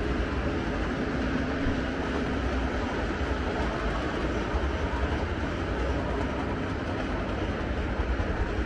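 O gauge model trains running past on the layout's track: a steady rumble of wheels and motors that holds at one level throughout.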